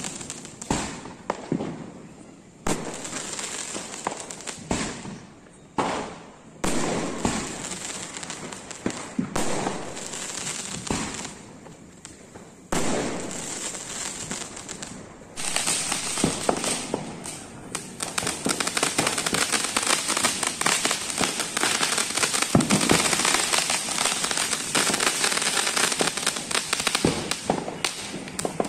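Fireworks going off: a string of sharp, irregular bangs and pops. About fifteen seconds in, they give way to a dense, continuous crackling.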